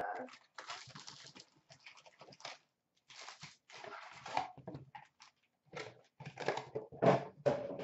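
Cardboard hockey card boxes being torn open and foil card packs tipped out and handled: a run of short, irregular rustling, scraping and tearing noises with brief pauses between them.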